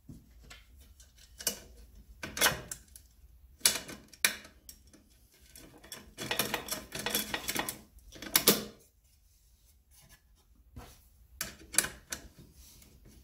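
Hands fitting the plastic blade guard onto a Parkside PMTS 180 A1 metal cut-off saw: scattered clicks and knocks of plastic and metal parts, with a stretch of scraping and rattling about halfway through.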